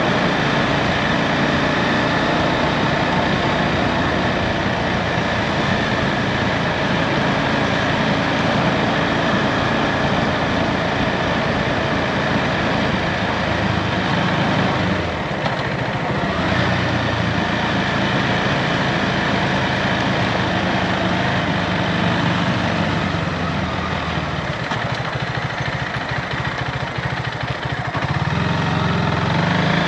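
Husqvarna Svartpilen 401's single-cylinder engine running under way, over a steady rush of wind and road noise. The engine drops back briefly about halfway through and again for a few seconds near the end as the bike slows for a roundabout, then picks up.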